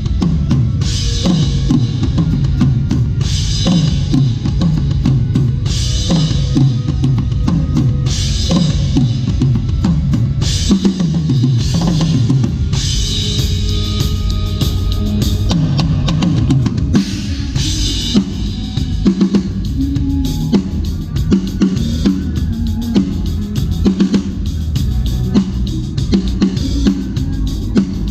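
Drum kit played in a steady groove: kick drum, snare and cymbals, with a crash or ride wash that comes back about every two seconds. The cymbals thin out about two-thirds of the way through.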